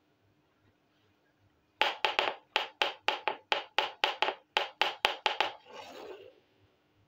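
A quick run of sharp plastic clicks, about four or five a second for a few seconds, from a small plastic toy saucepan being handled, then a short scrape as it slides across the board.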